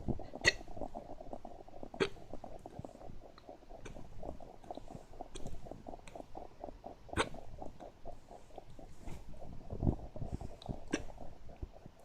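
Hiccups: sharp, sudden catches, four loud ones at irregular intervals with a few fainter ones between, over a steady low rumble.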